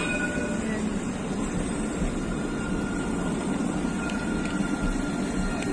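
Modern low-floor electric tram running alongside a station platform: a steady rumble with a faint, even electric whine.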